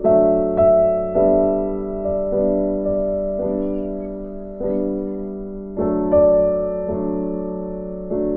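Background music: slow, soft piano chords struck about once a second, each ringing on and fading.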